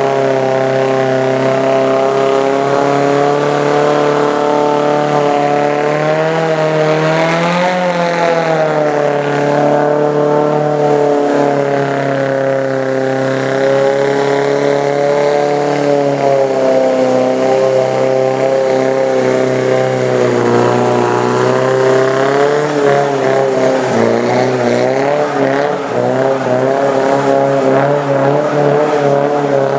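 Nissan S14's engine running at sustained revs, its pitch swinging up and down as the throttle is worked while drifting. There is a clear dip and rise about eight seconds in, and the pitch wavers again through the second half.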